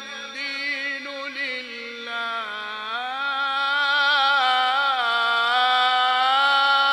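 A man reciting the Quran in the melodic mujawwad style, drawing out one long, ornamented note without a breath. The pitch slides up about three seconds in and settles lower about five seconds in.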